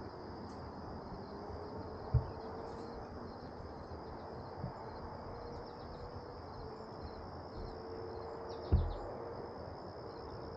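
A steady, high insect chorus holding one even pitch over a faint background hiss. Two short, dull low thumps stand out, about two seconds in and again near the end.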